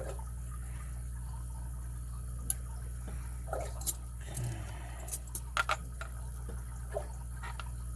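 Small sharp metal clicks and taps, about seven of them, the loudest about four seconds in, as a shim and key work a lock's core out of its housing, over a steady low hum.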